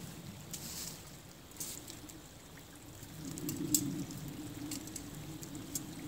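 A hand-held bundle of dry grass tinder burning, giving scattered sharp crackles and the rustle of the grass as it is handled. A creek trickles steadily underneath.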